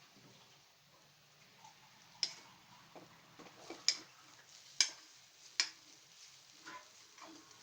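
Kitchen utensils clicking and knocking: four sharp knocks, irregularly spaced about a second apart, with fainter taps between them.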